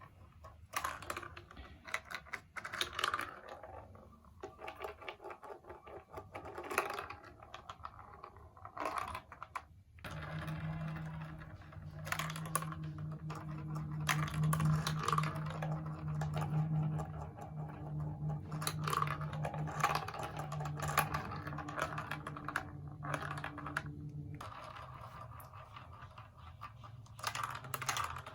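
Hard plastic marble-run building pieces clicking and rattling in irregular taps. For much of the middle there is also a steady low hum under the clicks, which stops suddenly near the end.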